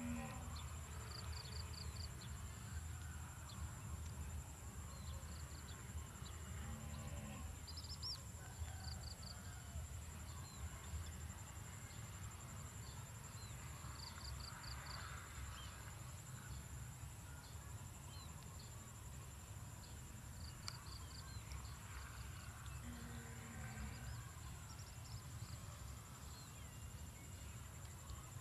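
Insects in a grassy field keeping up a steady high-pitched buzz, with short trills of four or five quick chirps every few seconds, over a low steady rumble.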